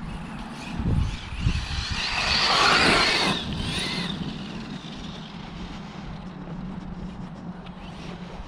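Arrma Mojave RC desert truck running across a grass field: its brushless electric motor and tyres swell to their loudest about three seconds in, then fade to a steady lower level.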